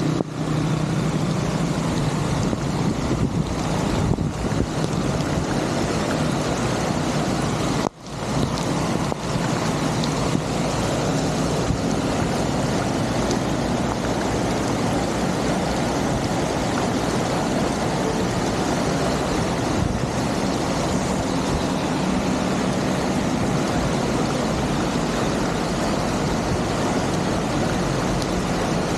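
Steady rushing water noise, broken by a brief sharp dropout about eight seconds in.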